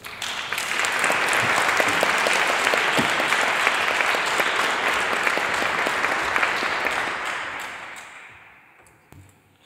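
Conference audience applauding: many hands clapping that build up in the first second, hold steady, then die away about eight seconds in.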